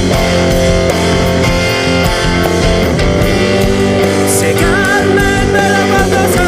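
Rock music with guitar, loud and continuous; a wavering high melody line comes in about two thirds of the way through.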